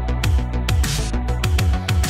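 Electronic music with a steady drum beat and deep bass thumps.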